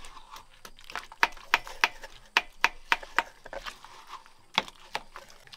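Watermelon chunks being mashed in a mortar: a run of sharp knocks about three a second, a pause, then two more near the end.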